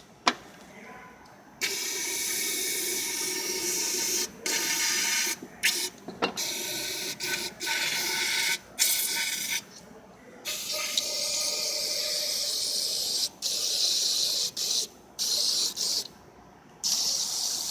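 Aerosol throttle cleaner sprayed into an oil-sludged engine part in repeated hissing bursts, from under a second to about three seconds long, with the liquid running inside the part.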